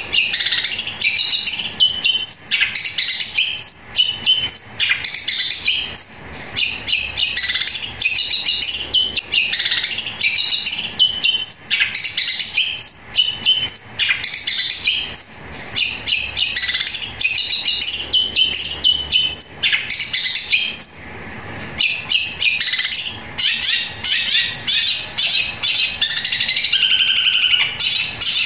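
Long-tailed shrike (cendet) singing loudly and almost without pause, a rapid run of sharp chirps and chatter that mimics the calls of fighting sparrows. It breaks off briefly about two-thirds of the way through, then starts again.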